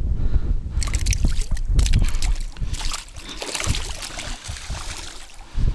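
A small asp is unhooked and thrown back into the river, splashing in the shallows about three seconds in. Before that come rustling and clicking from handling the fish and lure, and wind rumbles on the microphone throughout.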